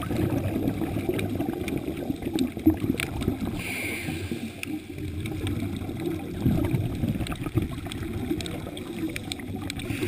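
Underwater rumbling and gurgling of a scuba diver's exhaled bubbles from the regulator, heard muffled through the camera's waterproof housing, with a brief hiss about four seconds in.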